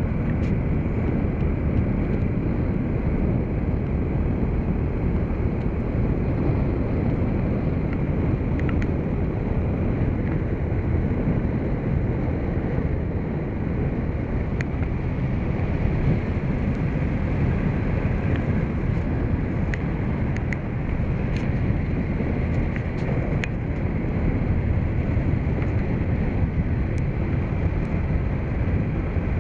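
Steady wind buffeting the microphone and road noise from a bike riding along a paved road, with a few light ticks in the second half.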